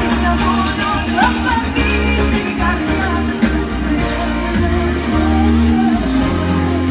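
Live band music played loud over a PA: pulsing bass and drums with cymbal ticks, guitar, and a woman singing a Greek pop song.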